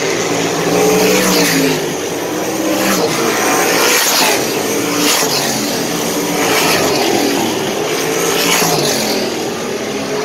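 A pack of sprint cars' V8 engines at racing speed, the engine pitch rising and falling as the cars pass one after another, several times.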